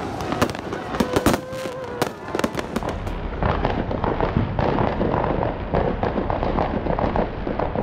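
Fireworks going off: a fast, irregular run of sharp bangs and crackling.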